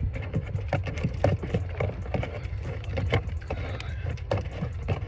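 Irregular clicks and knocks of hands working plastic trunk trim and push-in plastic fasteners back into place, over a steady low rumble.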